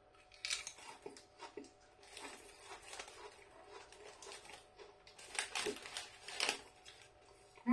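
Crunching of a potato crisp being chewed, a run of small sharp cracks. A few louder rustles of the crisp packet follow about two-thirds of the way in as a hand reaches into it.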